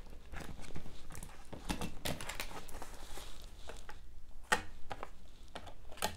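Paper banknotes rustling as they are handled and set into a stack, with scattered light taps and clicks.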